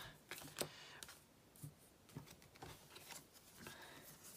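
Faint, scattered soft taps and rustles of photocards and plastic binder sleeves being handled.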